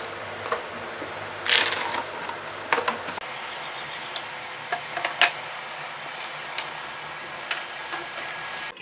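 Handling sounds from a zippered fabric pencil case being opened and rummaged through, with a loud rattling clatter about a second and a half in. Then scattered sharp plastic clicks from a paper trimmer as its slider is worked over the paper.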